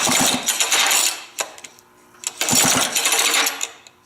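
McCulloch Super 33 chainsaw pulled over twice on its recoil starter, each pull a rattling whirr of about a second, the engine turning over without firing while it is checked for spark.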